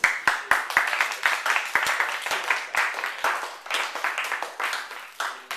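A small audience applauding: many hands clapping quickly.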